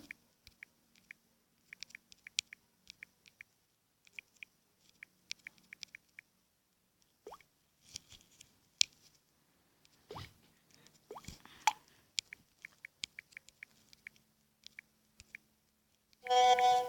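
Quick, irregular light clicks and taps from typing on a phone's touchscreen keyboard. Near the end a short, loud electronic chime, like a message notification, sounds and fades.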